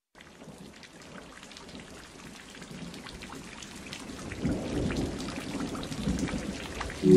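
Rain falling with low rumbles of thunder, fading in from silence and growing steadily louder. The thunder swells about halfway through and again near the end.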